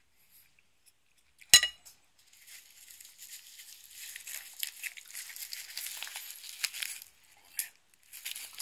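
A sharp knock about a second and a half in, then crisp, dry nori seaweed crackling and crinkling for several seconds as it is wrapped around rice and fillings into a hand roll.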